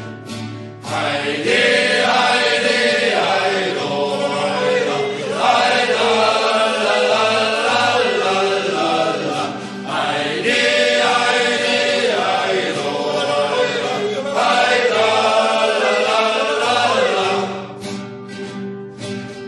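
A choir of mountain-infantry soldiers singing a German soldiers' song together, in two long phrases. Rhythmic accompaniment runs under it, and the voices stop about two seconds before the end while the accompaniment's short strokes carry on.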